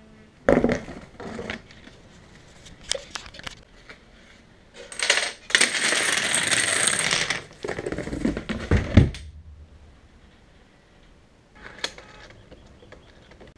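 Rube Goldberg machine running its chain reaction: a sharp knock and scattered clicks, then a dense clatter of many small hard pieces spilling across a wooden floor for about two and a half seconds, a few heavy thumps, and a single sharp click near the end.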